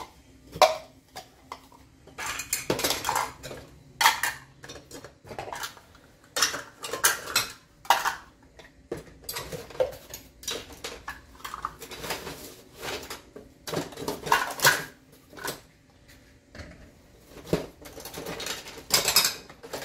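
Plastic measuring cups clacking and clattering as they are sorted and nested back into sets, with other kitchen utensils rattling in a cardboard box: irregular clicks and clatters throughout.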